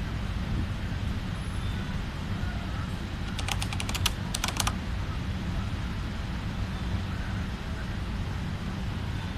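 Two quick runs of keyboard-typing clicks, about a second long in all, a typing sound effect for a caption being typed onto the screen. They come over a steady low outdoor rumble.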